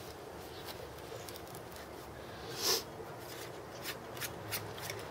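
Gloved hands twisting the cap off a metal can of tire bead sealer: soft rubbing with a louder short scrape about two and a half seconds in, then a few small clicks.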